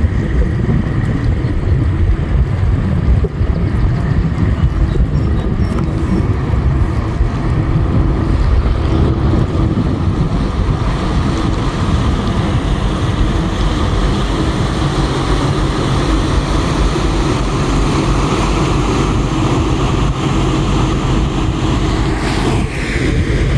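Steady drone of an inland motor cargo ship's diesel engine passing close by, under heavy wind buffeting on the microphone, with the hiss of its propeller wash churning the water.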